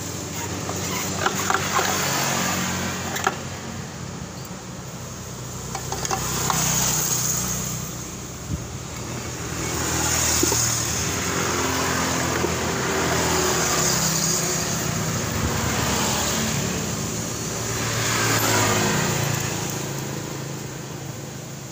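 Motor vehicle engines running, rising and falling in loudness several times over a steady low hum. A few sharp metallic clicks come about one to three seconds in, as the scooter's CVT clutch and pulley parts are handled and fitted.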